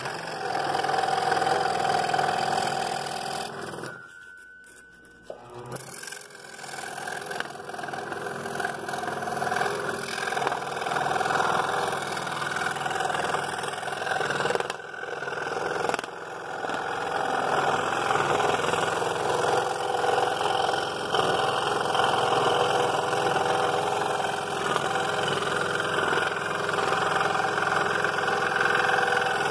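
Scroll saw running with its blade cutting a curve in thin wood, a steady machine sound. It drops away briefly about four seconds in and picks up again about two seconds later.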